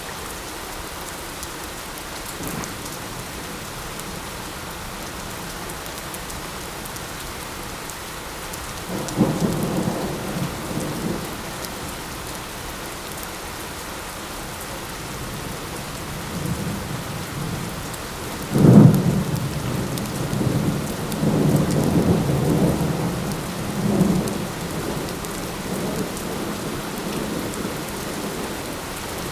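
Steady light rain, with two rolls of thunder: one about nine seconds in, and a louder one a little past halfway that rumbles on for several seconds.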